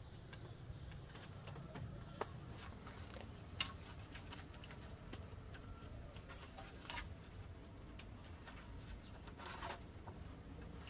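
A few scattered light clicks and knocks, the sharpest about three and a half seconds in, over a faint low hum.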